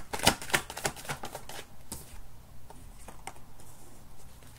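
Tarot cards being shuffled by hand: a quick run of crisp card clicks and snaps for about two seconds, then a few scattered ones.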